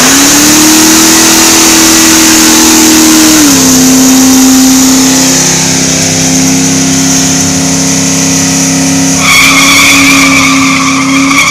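Loud burnout by a Chevrolet Nova: the engine is held at high revs while the rear tyres spin on the tarmac, its pitch dropping a step about three and a half seconds in and then holding. A high squeal joins about nine seconds in.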